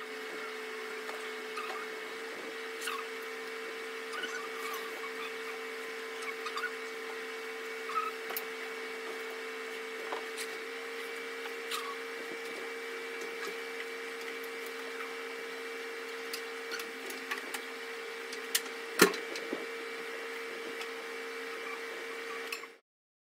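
Light clicks and taps of a paper birthday bunting being handled and fixed along a curtain, over a steady hum with a held low tone. One sharper knock comes about 19 seconds in.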